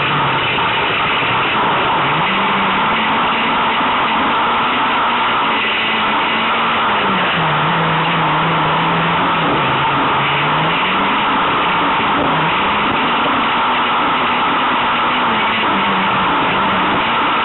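Peugeot 106 Rallye's TU5J4 16-valve four-cylinder on Weber carburettors, heard from inside the car under racing load, revving up and down with throttle and gear changes through corners over a constant loud rush of noise.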